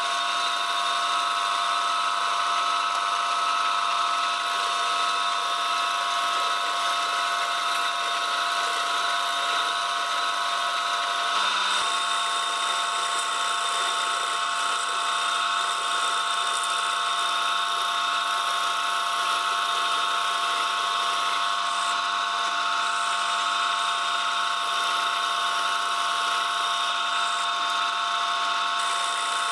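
Lathe running steadily with a constant whine from its drive while a toolpost cutter bores out the centre of a spinning glued bamboo disc. The tone shifts slightly about twelve seconds in.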